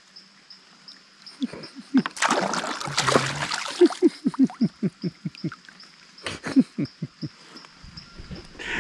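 Water splashing for a second or two as a metal fish lip-gripper is swished in the river to rinse off mud, followed by an animal's quick runs of short falling calls, about five a second.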